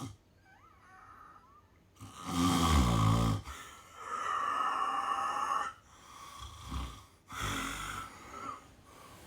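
A sleeping person snoring: a loud snore on the in-breath about two seconds in, a long breathy out-breath after it, and another snoring breath near the end.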